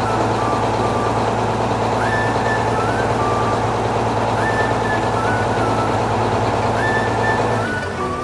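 Tractor engine running steadily, with a few short high notes repeating every couple of seconds over it. The engine sound drops away near the end.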